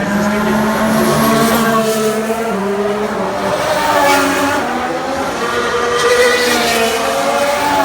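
A 2016 Formula 1 car's V6 turbo-hybrid engine at racing speed, its pitch climbing and dropping back several times as it changes gear.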